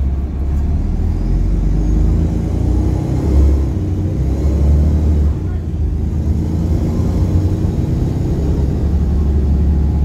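Volvo B7RLE bus's D7C six-cylinder diesel heard from inside the saloon while under way, a loud steady low drone with the rasp of a blown exhaust.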